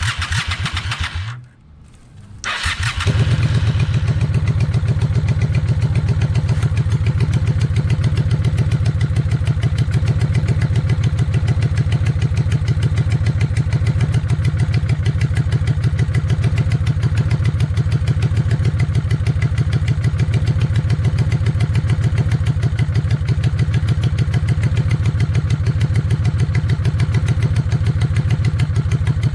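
Honda VLX 600 motorcycle's V-twin engine running with an even pulsing beat; it stops about a second in and starts again a second or so later, then idles steadily to the end.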